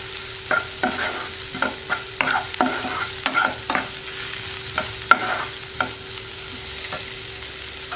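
Wooden spatula stirring and scraping onion, garlic, ginger and chopped chillies around a non-stick frying pan while the oil sizzles: a quick, irregular run of scrapes that thins out after about five seconds. A steady faint hum runs underneath.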